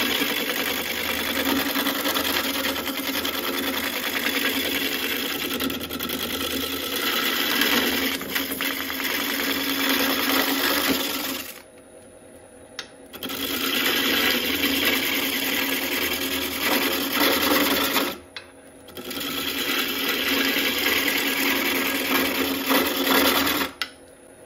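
A gouge cutting a spinning birch log on a wood lathe makes a loud, steady, rough shearing noise over the lathe's steady hum. The cutting breaks off twice, about halfway and about three-quarters through, and stops again near the end, leaving only the lathe running.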